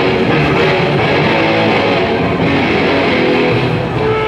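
Hardcore band playing loud live, with electric guitars and bass guitar.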